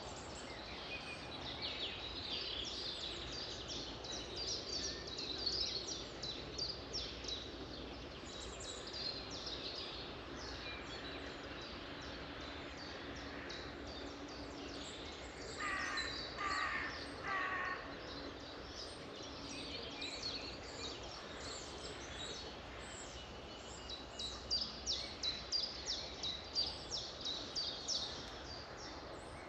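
Several songbirds singing and chirping over a steady background hiss, with many short high notes and trills. About halfway through, three louder, lower calls stand out, and near the end a fast run of rapid repeated chirps.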